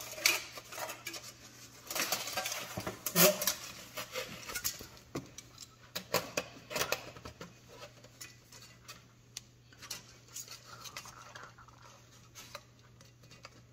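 Thin aluminium aircraft parts clinking and rattling as they are fitted together, with clecos set by cleco pliers: many short sharp metallic clicks and knocks. They are loudest and most frequent in the first seven seconds or so, then fainter and sparser.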